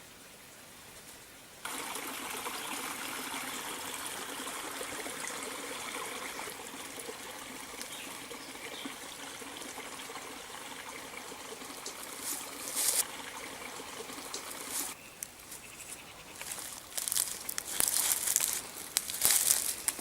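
Water trickling steadily, like a small forest stream, starting abruptly about two seconds in and cutting off at about fifteen seconds. After it come irregular crackling and crunching sounds that grow louder toward the end.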